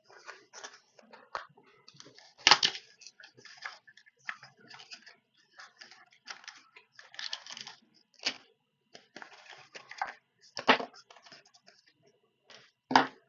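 Hands working on a drone's parts and tools: irregular small clicks, rustling and scraping, with three sharper knocks, about two and a half seconds in, near eleven seconds and near the end.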